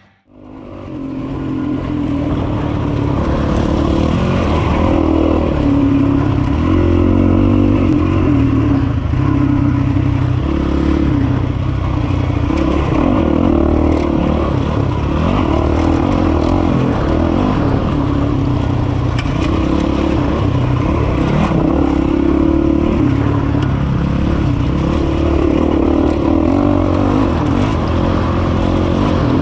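2006 Honda CRF450X's single-cylinder four-stroke engine running hard on a dirt trail, its pitch rising and falling with the throttle. It fades in over the first second or two.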